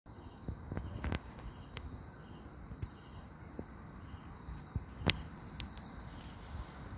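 Night insects chirping in a steady, pulsing trill, with a few sharp clicks, the loudest about five seconds in.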